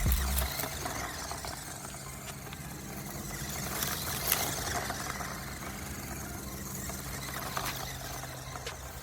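Traxxas TRX-4M RC crawler running as it is driven in donuts: its electric motor and drivetrain keep up a steady hum, with the odd sharp click or knock, the loudest about four and a half seconds in.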